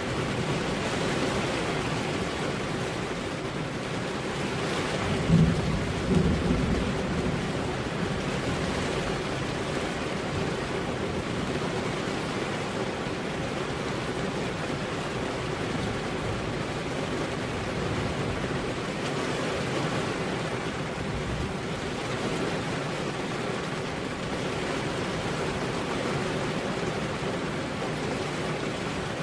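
Steady rain falling, with a clap of thunder about five seconds in that rumbles on for a couple of seconds.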